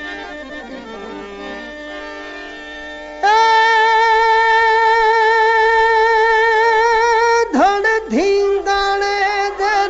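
Opening of a Gujarati devotional bhajan: a soft instrumental introduction of stepping notes over a drone, then about three seconds in a loud voice enters holding one long wavering note for about four seconds before breaking into sliding, ornamented phrases.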